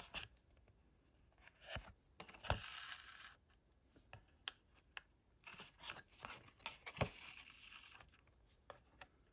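Hand stitching on a paper collage card: faint taps and clicks of the needle and card being handled, with two scratchy stretches of thread being drawn through the paper.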